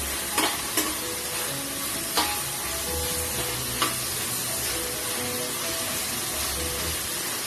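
Food frying in a pan with a steady sizzle, broken by four sharp clicks in the first four seconds as a utensil strikes the pan while stirring.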